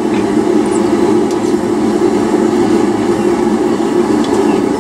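A forge running with a steady, unbroken rushing noise, with a few faint light ticks.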